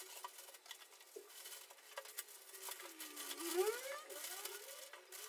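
Plastic bag crinkling with small clicks and knocks as clothes are packed into it. About three and a half seconds in, a short wavering cry slides up and down in pitch; it is the loudest sound here.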